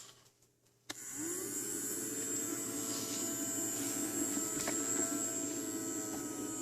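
Homemade vacuum cleaner switched on with a click about a second in; its motor spins up with a rising hum, then runs steadily with a high whine.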